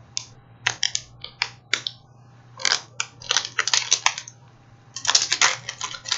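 Plastic Kit Kat wrapper crinkling and crackling as it is torn open by hand, in three bursts of sharp crackles.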